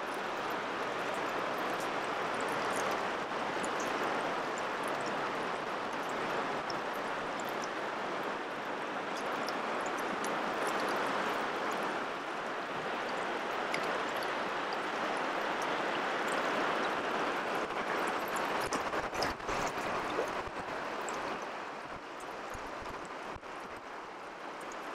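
Shallow river current running and lapping close by, a steady rush of water with small splashes and drips. There are a few soft bumps about three quarters of the way in.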